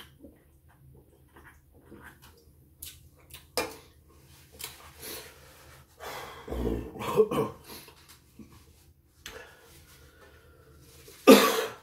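A man's drinking and eating sounds at a table: sips from a fizzy drink can, small clicks and knocks, and a low knock about halfway through. Near the end comes a short, loud cough.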